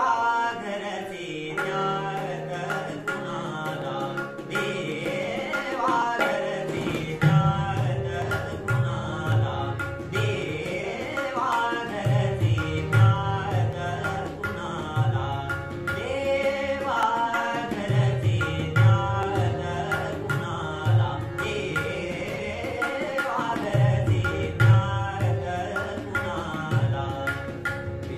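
Male voice singing a semi-classical Marathi song with harmonium and tabla accompaniment. The tabla's deep bass strokes come in about seven seconds in and keep a steady rhythm under the melody.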